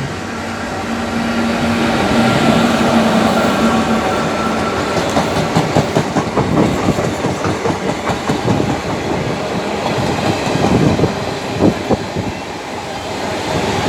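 Indian Railways express train, hauled by an electric locomotive, passing close by. A steady low tone sounds for the first few seconds as it comes up. Then the coach wheels clatter rapidly over the rail joints.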